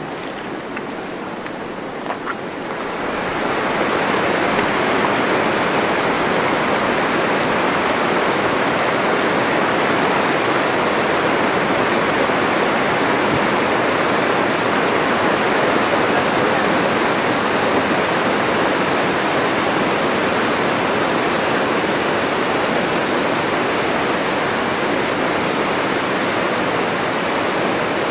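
Whitewater rapids rushing: a loud, steady noise of water that comes in about three seconds in. Before it there is a quieter stretch of river noise with a couple of small clicks.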